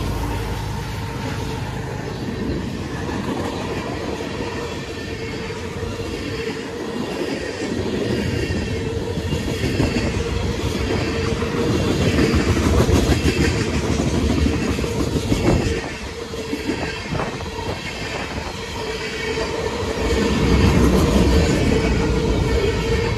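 Freight train rolling past at close range: the trailing diesel locomotive, an EMD SD70AC, goes by, then tank cars and open hopper cars, wheels rumbling and clattering over the rail joints. A steady high tone runs underneath, and a quick run of sharp clicks comes about two-thirds of the way through.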